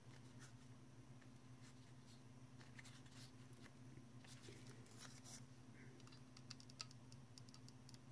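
Near silence: a faint steady hum, with a scattering of faint light ticks and taps, a few more near the end.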